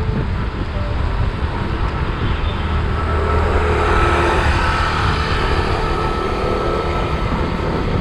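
Wind rushing over an action camera's microphone while cycling on a wet road, with a motor vehicle passing; the noise swells and is loudest about halfway through, then eases.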